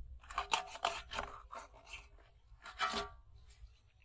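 Plastic bottles knocking and clattering against an aluminium bowl as they are dropped in and the bowl is handled, some knocks ringing briefly. A cluster of knocks comes in the first second and a half, and a louder clatter comes about three seconds in.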